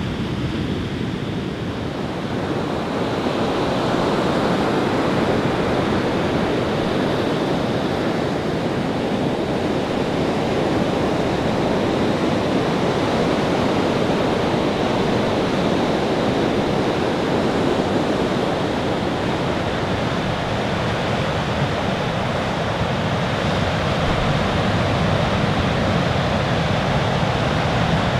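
Heavy surf breaking on a sandy beach: a steady, continuous wash of crashing waves, getting a little louder about three seconds in.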